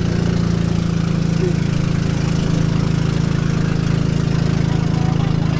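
Boat engine running steadily at an even speed, a constant low hum.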